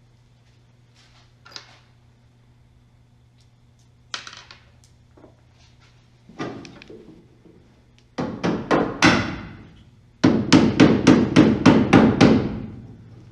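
A few scattered knocks, then rapid repeated hammer blows in two runs: about five quick strikes, a short pause, then about ten more at roughly five a second.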